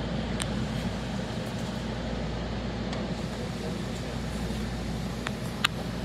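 Steady rain noise over a low, constant hum, with a few sharp taps; the loudest tap comes near the end.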